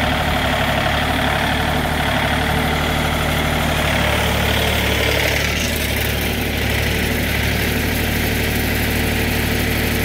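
Wood-Mizer LT40 sawmill's engine idling steadily between cuts, with no blade in the wood. A higher mechanical whine sits over the hum for the first five seconds or so, then drops away.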